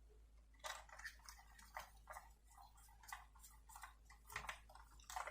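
Faint, irregular small clicks of a hand screwdriver turning a small screw into the metal base of a diecast model car, with the odd tap of the tool or the car being handled.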